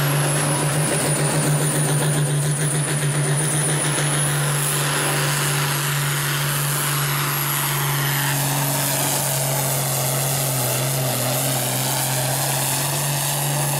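International Harvester farm tractor's diesel engine running flat out under heavy load while pulling a weight-transfer sled, a steady deep drone with a thin high whistle above it that wavers and slowly climbs.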